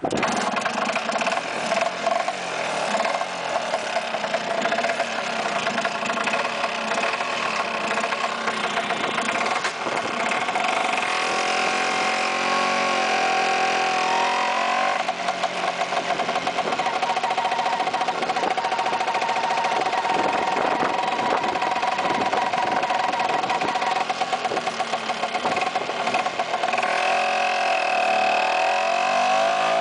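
Vespa PX scooter's two-stroke single-cylinder engine running under way. The revs dip and climb again partway through, then rise steadily near the end as the scooter accelerates.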